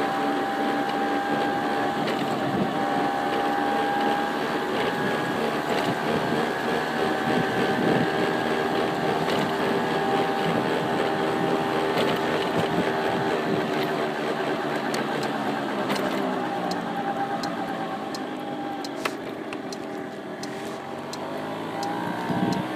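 A car driving steadily, with engine hum and road noise heard from inside the cabin; the engine's pitch shifts now and then.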